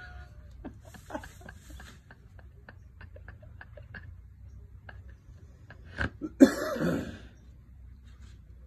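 A person coughing once, close by, about six and a half seconds in, after a scatter of soft clicks and rustles.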